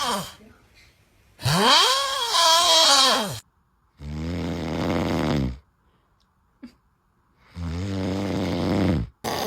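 A sleeping person snoring loudly and oddly. One breath comes out as a pitched, moaning tone that rises and then falls, and it is followed by two low, rattling snores a couple of seconds apart.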